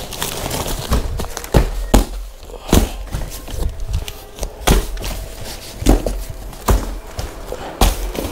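Plastic-wrapped bedsheet packs being lifted out of a carton and set down one after another: irregular knocks and thuds, about seven of them, with plastic packaging rustling in between.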